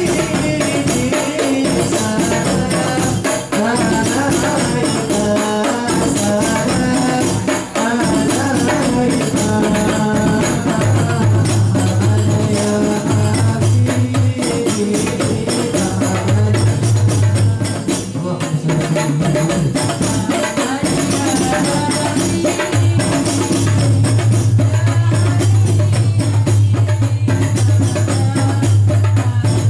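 A group of rebana frame drums beaten by hand in a steady, busy rhythm, with men singing a chanted melody over them.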